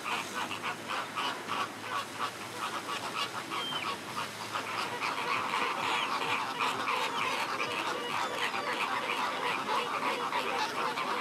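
A flock of American flamingos calling over one another in a continuous honking chatter of short, overlapping calls as the birds squabble.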